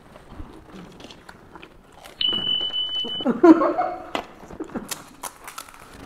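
Crisp cracks and crunches as hollow panipuri puris are broken open and eaten. About two seconds in, a high electronic beep holds steady for about a second, followed by a short muffled vocal sound.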